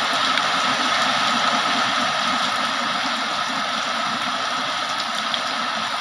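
Heavy rain falling steadily, an even rushing hiss with faint scattered drop ticks.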